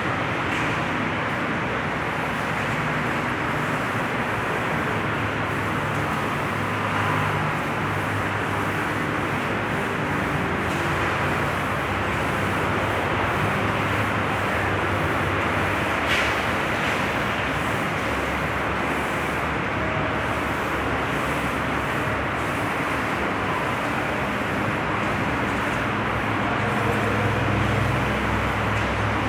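Steady machine noise: an even hiss with a low motor hum underneath, typical of an air compressor and paint spray gun running.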